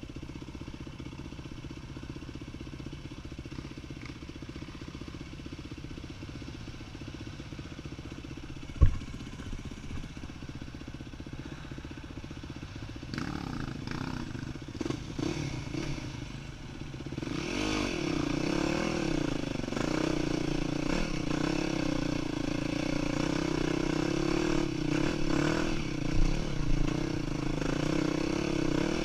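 Yamaha WR250F's single-cylinder four-stroke engine running low and steady, with one sharp knock about nine seconds in. About halfway through it starts to rev, then runs louder with its pitch rising and falling under changing throttle.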